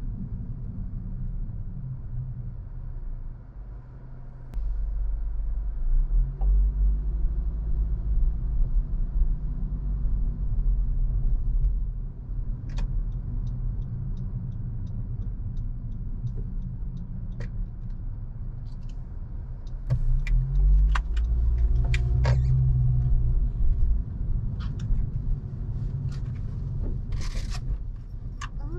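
A car driving in city traffic, with a steady low engine and road rumble. About four and a half seconds in, and again around twenty seconds, it grows louder and the engine pitch rises as the car accelerates. Scattered small clicks and knocks are heard, and a short hiss comes near the end.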